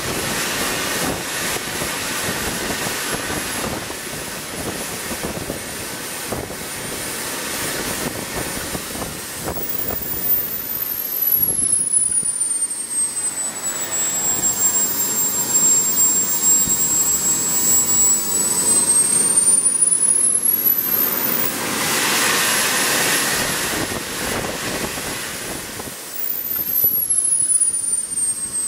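Small model jet turbine engine running with a loud roar and a high whine. It spools up about ten seconds in and holds at high power for roughly ten seconds, then spools back down and is accelerated again a few seconds before the end, as throttle is worked in an acceleration test.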